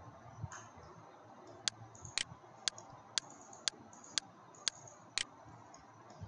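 Computer mouse clicking: eight sharp clicks at an even pace of about two a second, starting about a second and a half in.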